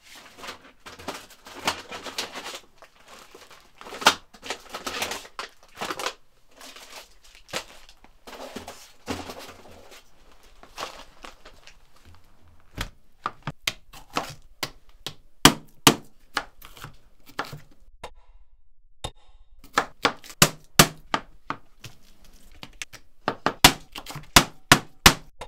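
Rustling, scraping and knocking of objects being handled for about the first ten seconds, then sharp separate knocks that turn into quick runs of chopping, about four strokes a second near the end: a chef's knife cutting bell pepper on a cutting board.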